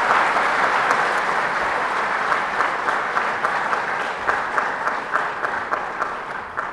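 Audience applauding, a dense patter of clapping hands that gradually thins and fades toward the end, with individual claps standing out in the later part.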